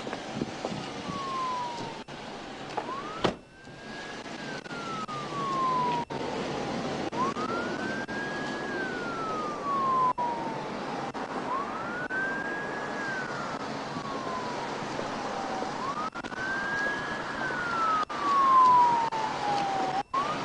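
Police siren in wail mode, starting about three seconds in with a sharp click just before it and then rising quickly and falling slowly about every four seconds. A steady rushing noise runs underneath.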